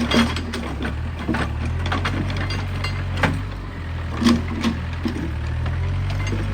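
Excavator's diesel engine running steadily, with a handful of sharp wooden knocks as logs are gripped and bump against each other.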